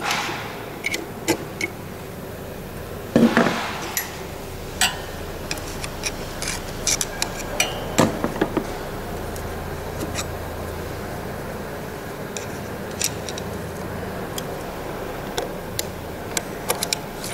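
Steel pick or screwdriver prying and scraping at the retaining circlip of a driveshaft universal joint, in scattered light metallic clicks and scrapes. A louder scraping clatter comes about three seconds in and a cluster of sharp clicks around eight seconds.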